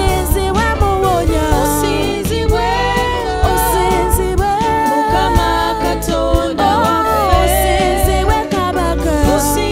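Live gospel worship music: women's voices singing a Luganda praise song over a band of electric guitars, drums and keyboard, with a steady bass and regular drum and cymbal hits.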